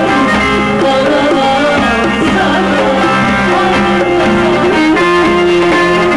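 Live Turkish folk music on plucked string instruments with hand-drum percussion, played loud through a stage sound system.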